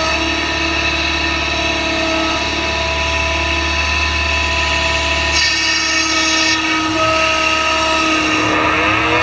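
Case tracked excavator's diesel engine and hydraulics working under load as it swings and dumps a bucket of dirt into a dump truck: a steady whine of several held tones that shift in pitch every second or two, with a brief hiss about halfway through.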